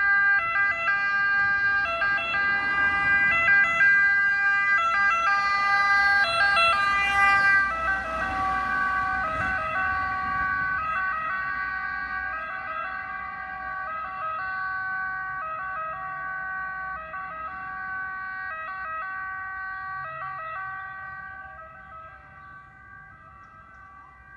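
Italian Red Cross ambulance sounding its two-tone siren, switching back and forth between two pitches, with engine and tyre noise under it. It is loudest as it passes about seven seconds in, where the pitch drops slightly, then fades as the ambulance drives away.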